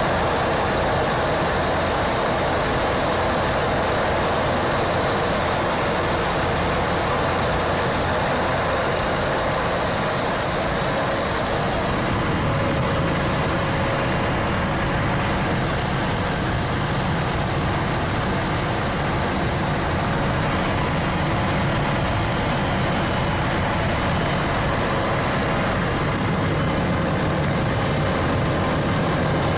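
Single-engine propeller plane's engine and propeller running steadily, heard from inside the cockpit on the landing approach, with a steady high whine above the engine noise. The tone of the engine noise shifts about twelve seconds in and again near the end.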